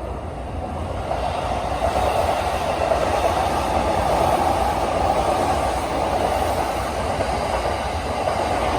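Train running on the rails, a steady rumble that grows louder about a second in.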